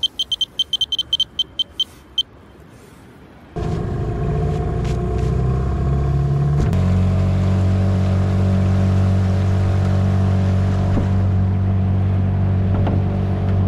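Electronic bite alarm on a fishing rod beeping about nine times in quick succession, a test as it is fitted. Then a boat's outboard motor running steadily, its note changing once a few seconds after it comes in.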